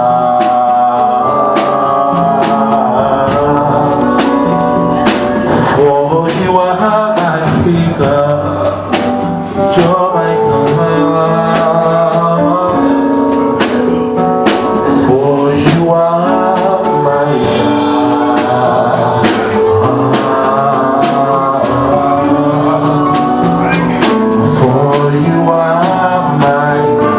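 Live gospel music: a band playing with a steady beat and a voice singing over it.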